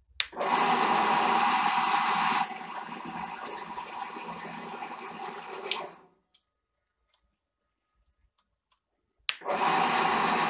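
Drill press's three-phase motor and spindle running from the repaired Altivar 11 variable frequency drive, the drive powering the motor for the first time. It starts with a click, runs loudly for about two seconds, then runs quieter, stops with a click about six seconds in, and starts again near the end.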